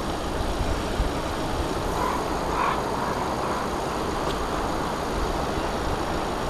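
Steady outdoor background noise, with a faint brief sound standing out a couple of seconds in.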